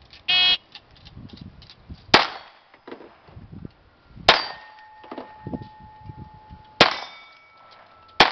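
Shot timer's start beep, then four pistol shots. Each shot is followed by the clang of a hit steel target plate ringing on afterwards.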